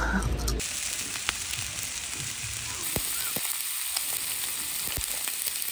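Lamb chops sizzling on foil as they cook: a steady frying hiss with a few sharp pops of fat.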